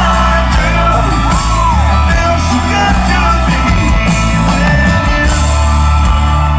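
Loud rock music with a singing voice and a steady bass line.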